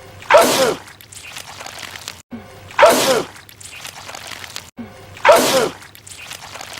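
A man sneezing loudly, the same sneeze repeated three times about two and a half seconds apart, with a brief dead gap before each one as the clip loops.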